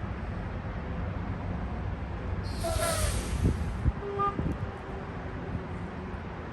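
Freightliner semi-truck's diesel engine running at a low, steady rumble, with a short hiss and a falling squeal about two and a half seconds in.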